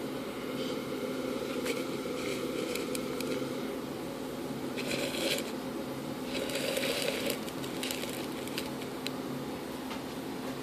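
Crackling and scraping of a plastic container being handled, in scattered bursts that are loudest about five and seven seconds in, over a steady low background hum.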